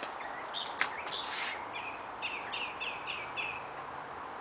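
Small birds chirping, with a quick run of about six repeated chirps in the second half. A single sharp click comes about a second in.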